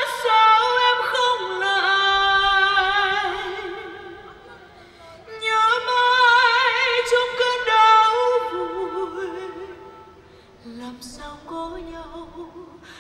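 Women singing long, held notes with a wide vibrato, in two swelling phrases that each fade away, followed by a softer, lower line near the end.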